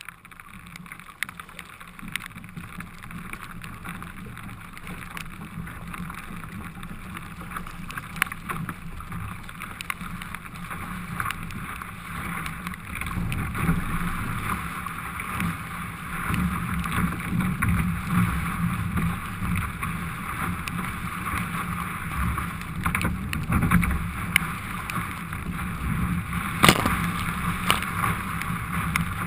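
Water rushing and splashing along the hull of an ocean ski as it is paddled through rough swell, with rain and wind on the microphone and scattered small taps. The rush grows louder about halfway through as the ski speeds up, and one sharp knock comes near the end.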